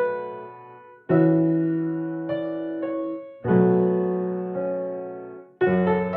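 Soft background piano music: slow chords struck about every two seconds, each left to ring and fade, with a few single notes in between.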